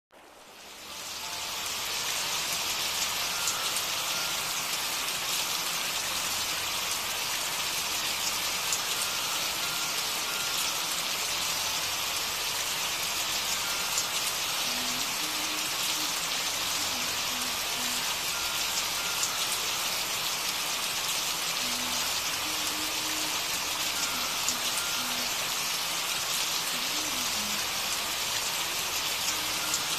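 Steady rain sound, the masking track of a subliminal audio, fading in over the first second or two. Faint short tones sit beneath it in the second half.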